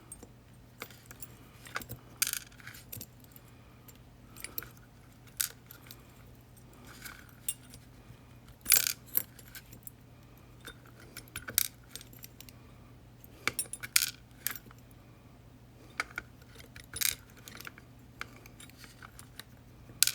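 Small metal lock parts (pins, springs and sliders from a disassembled Yale 2000 Plus) clicking and clinking as they are handled and set down, in scattered light clicks and short clatters over a faint steady hum.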